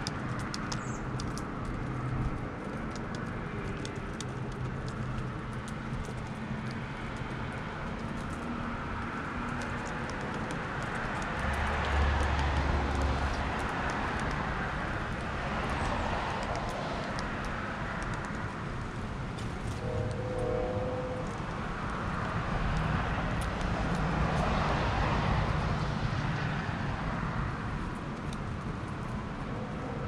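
Road traffic: cars passing one after another, each swelling and then fading away, with a low rumble about twelve seconds in. Faint scattered ticks sit over the traffic.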